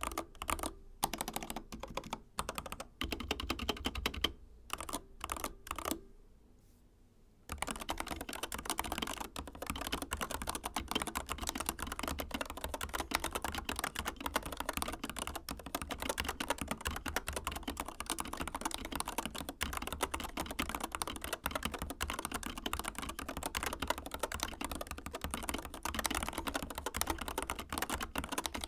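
Typing on a Corsair K70 Max RGB mechanical keyboard with MGX magnetic switches. Short separate bursts of keystrokes come first, then a brief pause, then fast steady typing from about seven seconds in.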